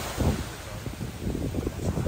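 Small waves breaking and washing up a beach, with wind gusting on the microphone.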